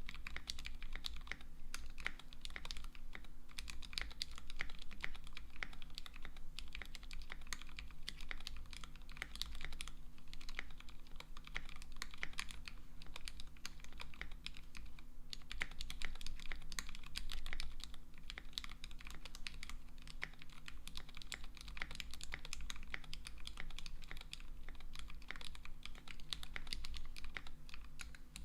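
Continuous typing on a KBDFans D65 mechanical keyboard with lubed Gateron Black Ink V2 linear switches on a brass plate and no foam between PCB and case; a steady stream of key strokes with a brief pause about halfway through.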